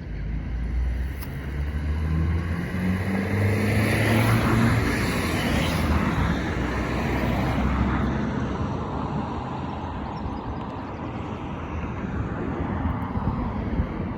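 A motor vehicle driving past close by: its engine note climbs over the first few seconds, the sound is loudest about four to six seconds in, then it slowly fades away.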